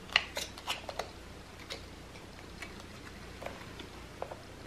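Scattered light clicks and taps of plastic as hands turn a plastic-fork paddle to wind the rubber band of a plastic-bottle paddle boat; the clicks come several together in the first second, then only a few now and then.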